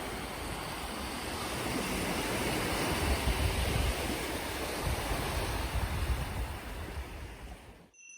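Steady rushing noise of waves and wind, with low gusts on the microphone, fading out about a second before the end.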